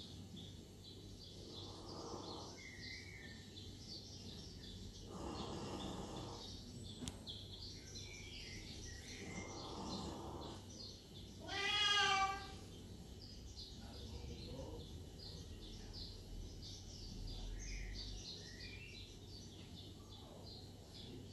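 A domestic cat meows once, loud and drawn out for about a second, just past the middle. Faint small-bird chirping from a television runs underneath throughout.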